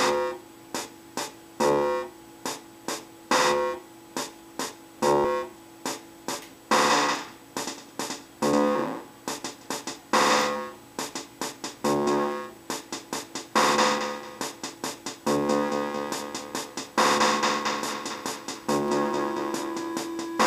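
Circuit-bent electronic keyboard with a Boss 303 unit, putting out short, glitchy pitched synth notes and hits in an uneven stuttering pattern. About two-thirds of the way in the notes grow denser and are held longer.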